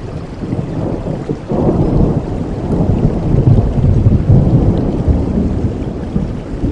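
Steady rain with a long rolling rumble of thunder that swells about a second and a half in and keeps rolling.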